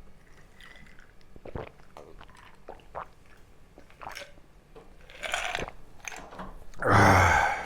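Close-up mukbang eating sounds: a person biting and chewing braised pork kimchi, with small wet mouth clicks. A louder noisy sound of about half a second comes near the end.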